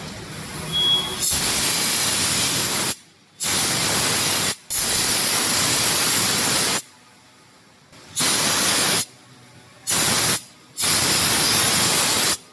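Compressed-air Venturi vacuum and blow gun triggered on and off. It gives a loud rush of air hiss in six separate bursts, each cut off sharply, lasting from about half a second to two seconds.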